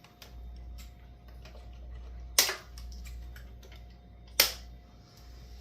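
Snippers cutting off excess zip-tie tails: two sharp snaps about two seconds apart, with fainter clicks of handling between them.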